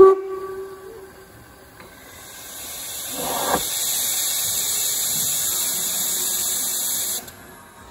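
Steam locomotive 99 7243-1, a Harz narrow-gauge 2-10-2 tank engine: the last of its whistle blast fades in the first second, then its open cylinder drain cocks blow off steam in a loud, steady hiss for about five seconds, clearing the cylinders as it starts away, with a brief deeper rush about three seconds in. The hiss cuts off sharply.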